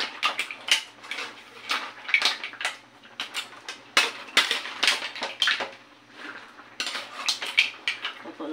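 A spatula repeatedly scraping and clinking against a wide metal pan while shrimp, crab and corn cobs are stirred and turned over. The knocks come irregularly, several a second.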